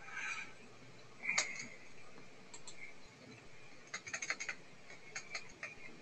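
Faint clicking on a computer, picked up through a video-call microphone, as slides are paged through: one sharp click about a second and a half in, a quick run of clicks around four seconds, and a few more near the end.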